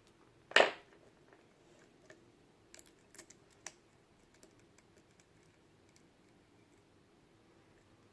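A lock pick and tension wrench working the pin tumblers of a Mul-T-Lock Jr. padlock core. There is one sharp, loud click about half a second in, then a few light clicks scattered over the next few seconds.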